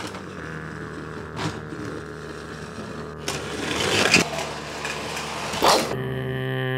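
Rough engine rumble for a toy monster truck driving off with a toy safe towed behind it on a string, with a few short louder bursts along the way. Near the end a steady droning tone starts.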